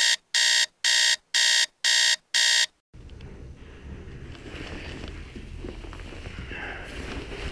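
Alarm clock beeping six times, about two beeps a second, then stopping; after it, a steady lower rustle and rumble of room noise.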